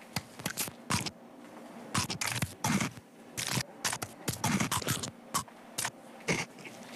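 Kit Kat chocolate-covered wafer bars being snapped and bitten: a quick, irregular run of sharp, crisp snaps and crunches, two or three a second.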